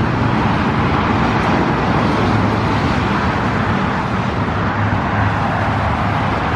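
Steady traffic noise from a nearby interstate highway: a continuous wash of tyre and engine sound, with no single vehicle standing out.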